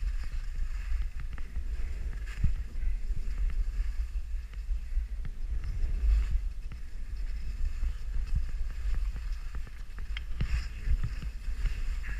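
Wind buffeting the microphone of a camera moving fast down a snow slope, a steady low rumble with scattered small knocks.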